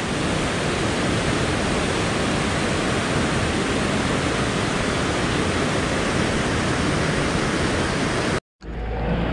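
Steady rushing of a rocky mountain river's rapids, an even wash of noise that cuts off abruptly near the end.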